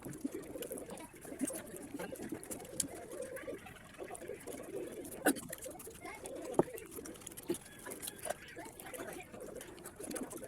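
Close-up chewing and wet mouth sounds of someone eating, going on throughout, with two sharper clicks near the middle.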